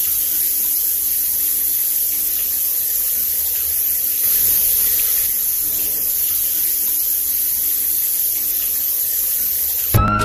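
Steady rush of flowing creek water with a hissing top end. Music cuts in suddenly at the very end.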